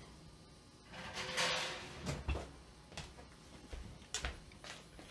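Chainsaw crankcase parts being handled on a workbench: a brief rushing scrape about a second in, then a series of light knocks and clicks as the pieces are set down and fitted.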